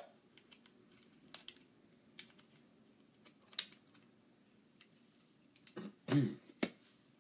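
A few faint, scattered clicks like keystrokes over a faint low hum, with a short, louder low thump about six seconds in.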